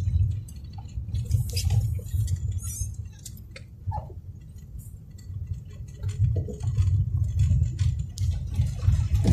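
Low rumble of a car driving, heard from inside the cabin, with scattered light clicks and rattles.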